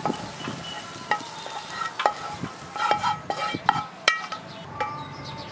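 A wooden spatula scrapes sautéed onions out of a frying pan onto a stainless steel plate. It makes a series of sharp clinks and knocks that each ring briefly as the spatula and pan strike the plate.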